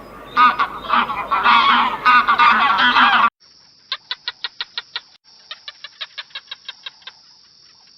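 A flock of geese honking, many loud overlapping calls at once, cutting off suddenly about three seconds in. After the cut come two quick runs of sharp clicks, about eight a second, over a steady high hiss.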